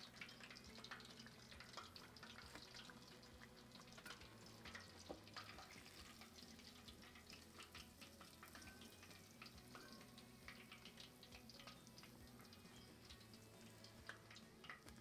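Faint sizzle and crackle of hot oil deep-frying a cornmeal-battered catfish fillet in a cast-iron pot, with scattered small pops.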